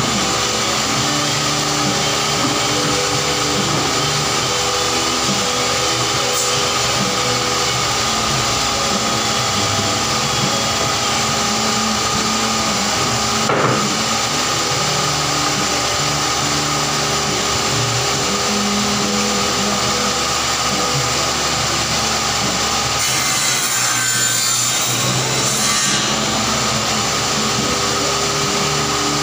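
Table saw running and ripping plywood sheets, a steady machine hum under the hiss of the blade cutting through the wood.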